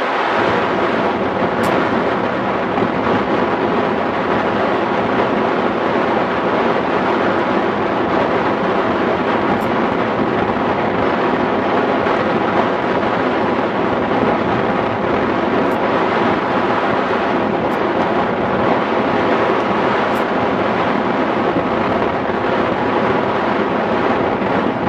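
Airflow in hang glider flight buffeting the glider-mounted camera's microphone: a steady, loud rush of wind noise.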